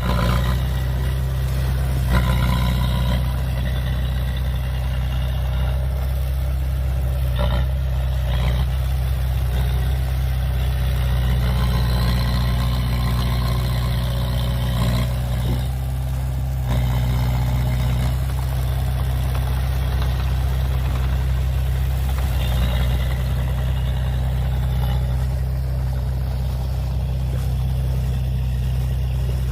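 Heavy diesel earthmoving engine running steadily, low and even, with a few brief knocks along the way.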